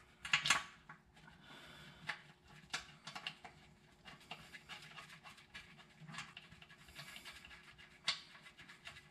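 Faint, irregular scratching and clicking of metal being handled: a transmission pan bolt being started by hand against the new pan. A faint steady hum underneath.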